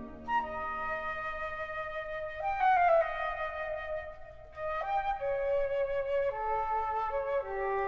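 Orchestral film score music: a lone woodwind line plays a slow melody of long held notes that step mostly downward, with a falling slide near the middle.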